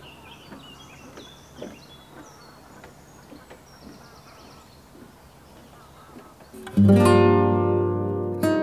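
Faint footsteps on wooden jetty boards, with a few high bird chirps over quiet outdoor ambience. About two-thirds of the way in, a loud strummed acoustic-guitar music track starts and takes over.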